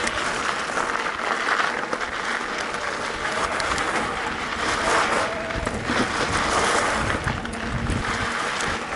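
Mountain bike riding a loose dirt trail: steady rushing, crunching noise of the tyres on the ground, with scattered clicks and rattles from the bike.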